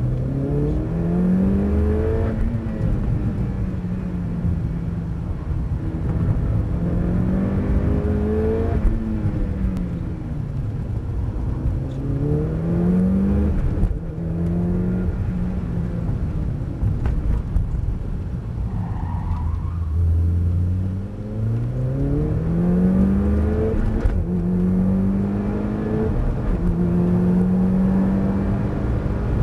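Streetstock race car's engine at full throttle, heard from inside the cabin, revving up in pitch several times and dropping back between, then holding a steady high pitch near the end, over constant road rumble.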